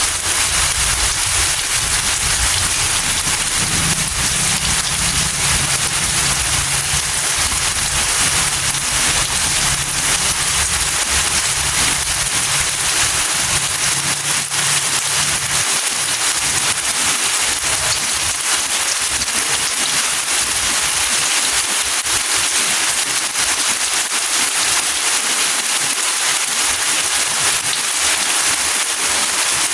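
Steady rain falling, an even hiss of drops. A low hum sits under it and fades out about halfway through.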